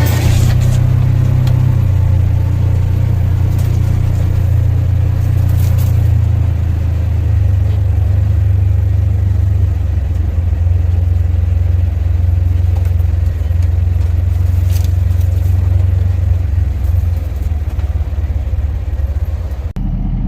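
Side-by-side UTV engine running steadily under load while driving, its low drone shifting slightly in pitch about two seconds in.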